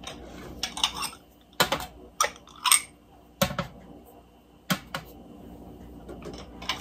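Small glass dessert cups set down one at a time on a metal baking sheet, giving sharp clinks and knocks at irregular intervals.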